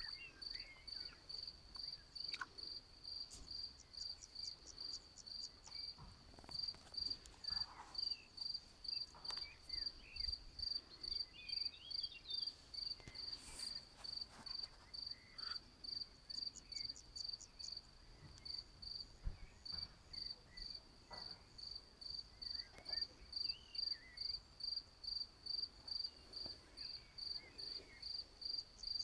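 A cricket chirping steadily at one high pitch, about two chirps a second, with a short break about two-thirds of the way through. Faint, faster, higher trills come in now and then.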